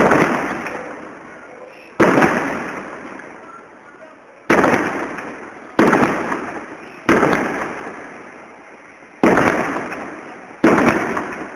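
Aerial firework shells bursting overhead: seven loud bangs, about one to two seconds apart, each fading away in a long echoing rumble.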